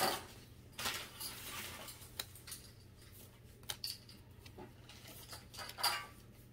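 Pokémon trading cards being flipped through by hand, one at a time: a series of short, irregular papery slides and flicks as each card is moved to the back of the stack.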